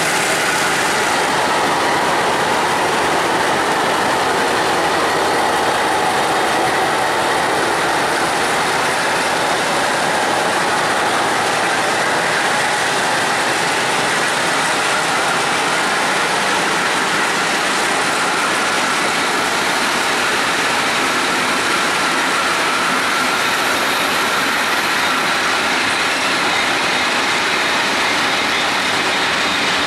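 A long loaded freight train of open wagons rolling slowly past on jointed track, wheels and wagons clattering steadily with a faint wheel squeal. At the start the train's MLW diesel locomotive is pulling under power.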